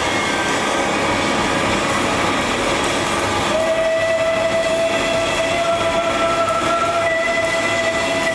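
A live band plays a loud, dense drone of distorted guitar and keyboards. About three and a half seconds in, a long, steady high note enters and is held over the wash.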